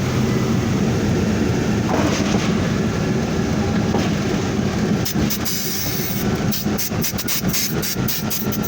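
Antonov An-2's nine-cylinder radial engine and propeller droning steadily inside the cabin. About five seconds in, the steady drone gives way to an uneven rattling with rapid knocks.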